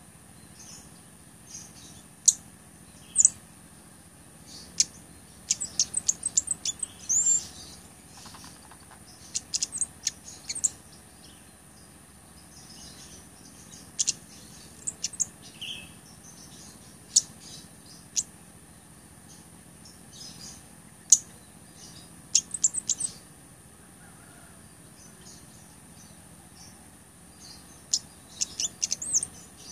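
Blood-breasted flowerpecker (cabai gunung) giving sharp, very high, thin chip calls and short chittering runs in irregular bursts, with pauses of a few seconds between them.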